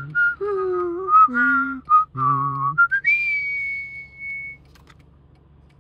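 A man whistling a short tune mixed with voiced notes. Near the end a whistle glides up into one long, high, steady note held for about a second and a half, then stops.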